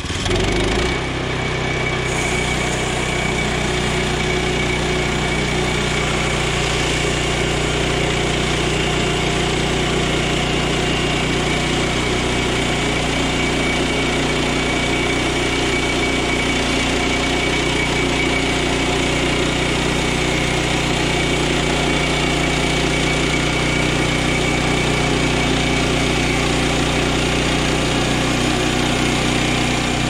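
A Woodland Mills HM122 portable bandsaw mill's gas engine running steadily while the band blade cuts through a pine log, with a thin steady whine over the engine. The sound steps up about half a second in, then holds even.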